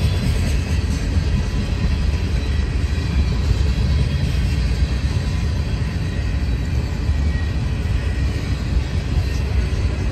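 CSX intermodal freight train rolling past: a steady low rumble with faint steady high tones over it.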